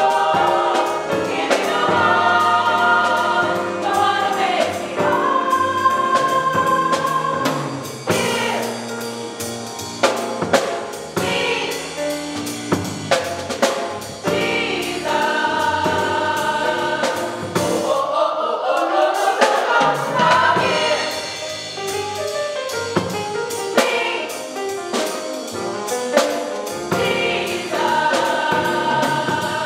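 Gospel choir singing a song, with drums keeping the beat.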